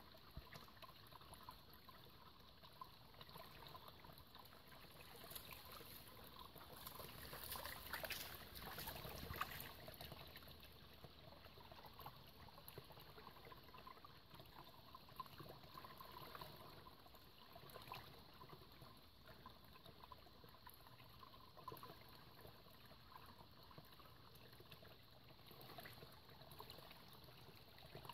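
Faint, steady trickle of a small shallow forest stream running over stones, with a louder patch of splashing about eight seconds in as the dog steps into the water.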